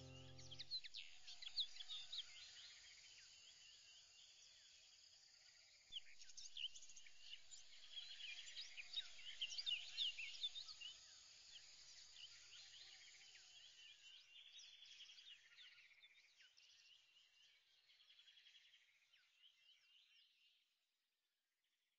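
Faint chorus of many small birds chirping in quick, overlapping calls, fading away and stopping shortly before the end.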